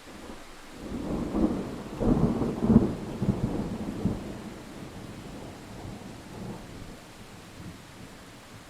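A thunderclap rolling in over steady rain: the rumble swells about a second in, peaks in a few loud cracks about two to three seconds in, then rolls away and fades over the next few seconds, leaving the rain hiss.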